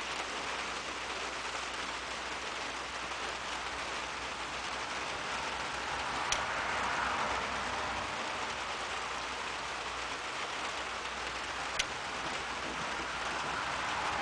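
Steady rain falling, an even hiss, with two sharp ticks, one about six seconds in and one near twelve seconds in.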